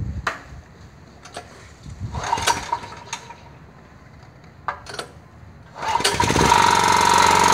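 Small portable generator engine being started on propane (cooking gas) with its petrol supply shut off: a few knocks and a brief sputter that dies, then about six seconds in the engine catches and runs steadily.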